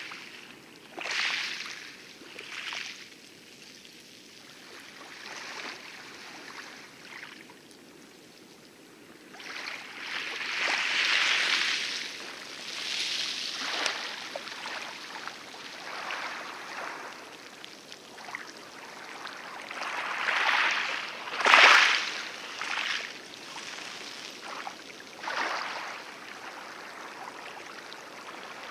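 Light lagoon waves washing and lapping on coral: irregular swashes that rise and fall every few seconds, the loudest a sharp splash about three-quarters of the way through.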